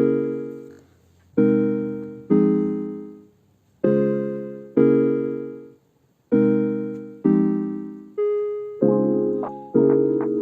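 Background music: slow piano chords, each struck and left to fade, with short gaps between some of them and a quicker run of notes near the end.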